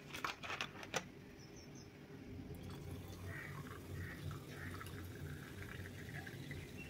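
Soda water poured into a glass over ice and strawberry syrup, a faint steady pour with fizzing, preceded by a few light clicks in the first second.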